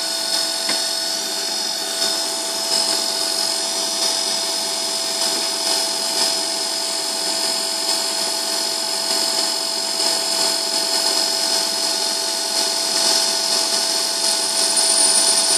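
Emco Compact 5 CNC lathe running a light finishing cut on an aluminium backplate's spigot: the spindle and drive motors give a steady whine made of several fixed tones, while the tool reduces the spigot's front end. A higher-pitched tone joins near the end.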